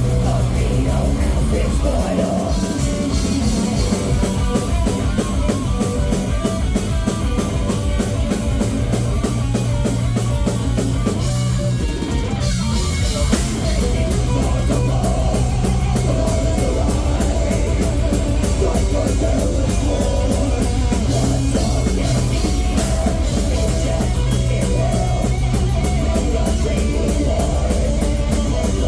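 Heavy metal band playing live: electric guitars and a drum kit with fast drumming. There is a brief break about twelve seconds in, after which rapid cymbal strokes drive the rest of the passage.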